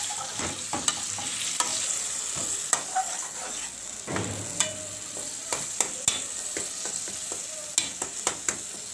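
Tomatoes and spice paste frying in a metal karahi with a steady sizzle, while a perforated metal spoon stirs them and scrapes and clinks against the pan at irregular moments. The tomatoes are being fried down until they soften into the masala.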